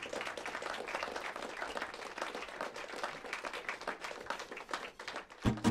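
Audience applauding, a steady patter of many claps. Just before the end, an acoustic guitar starts strumming.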